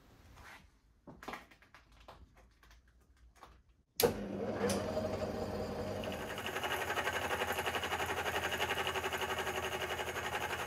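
Elliott milling machine's face cutter machining the end face of a Kawasaki Z1 cylinder head casting, fed slowly. A few faint handling clicks come first. About four seconds in, a loud steady machining sound with a fast, even pulse from the cutter teeth starts suddenly.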